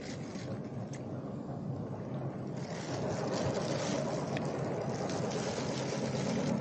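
Wind buffeting an action camera's microphone, a steady low rumble that grows a little stronger about three seconds in, with faint crinkles of a thin plastic bag being handled.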